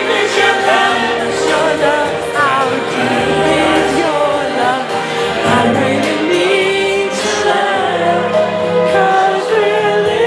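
A song with sung vocals and accompaniment, played over a sound system for dancing.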